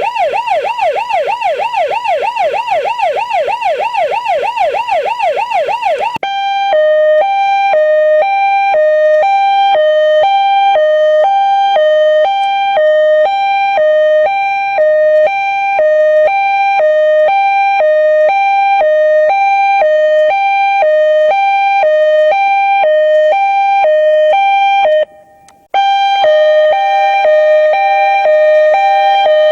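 Police siren sounding in a fast yelp of rapid rising-and-falling sweeps. About six seconds in it switches to a two-tone hi-lo pattern alternating steadily between two pitches, which cuts out briefly near the end and then resumes.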